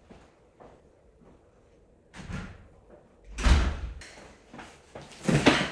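Two loud thumps about two seconds apart, the second near the end, after a softer knock: cardboard moving boxes being handled and set down.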